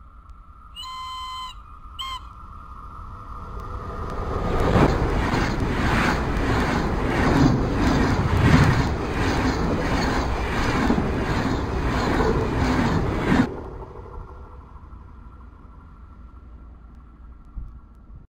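Electric locomotive of DB class E10 hauling TEE passenger coaches. It gives a horn blast and a shorter second one as it approaches, then passes close at speed with the wheels clattering over the rails about twice a second. The noise cuts off suddenly.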